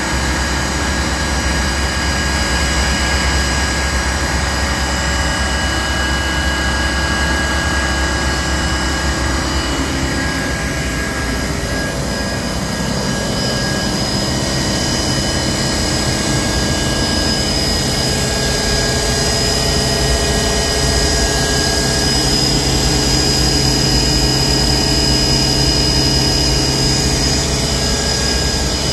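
A Tsugami B0385 Swiss-type CNC lathe running under power: a steady machine whine made of several high tones over a low hum. The low hum shifts in pitch about halfway through.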